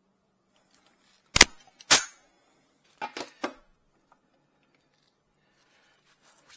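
Two loud, sharp clicks about half a second apart, then three softer clicks in quick succession about a second later.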